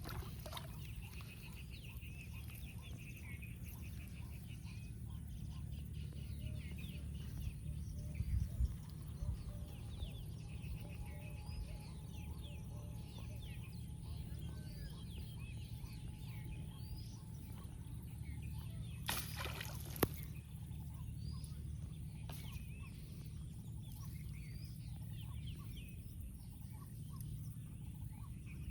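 Outdoor bird calls: many short chirps and a rapid run of pulsed calls near the start, over a steady low rumble. A single sharp knock comes about twenty seconds in.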